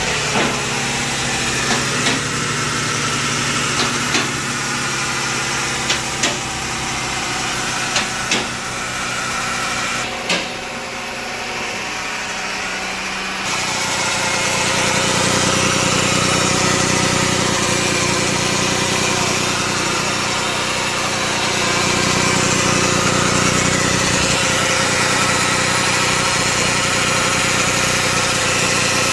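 2007 Toyota RAV4 AWD running with a steady whine from its automatic transmission pump, the noise being documented as a fault for a warranty claim. Sharp clicks come about every two seconds in the first part, and about halfway through the engine sound changes and grows louder.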